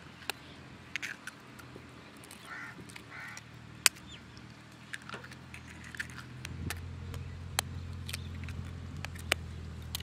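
Eggshells being cracked with a knife blade: sharp single taps every second or so, one much louder a little before the middle. Under them runs a low steady hum that grows stronger from about two-thirds of the way in.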